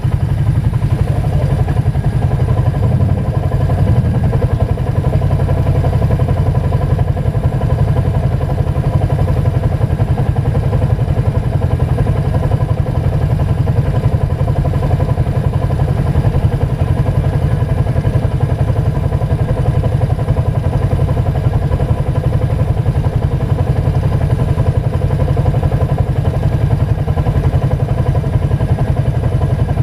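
Loud, steady running of an ATV (quad) engine, a dense low rumble that holds the same pace throughout.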